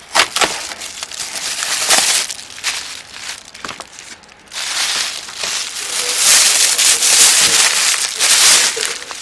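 Close-up crinkling and rustling handling noise with sharp clicks, as of plastic being handled and rubbed. The rustling swells about halfway through.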